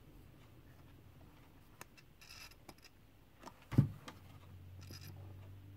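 Light clicks and scrapes of multimeter test probes being handled and touched to the wire legs of a small zener diode on a wooden bench, testing it on diode setting, with a soft thump nearly four seconds in.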